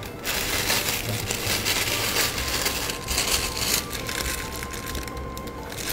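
Plastic piping bag crinkling and rustling as it is handled and filled with cherry jam, the crackle dropping away briefly about five seconds in.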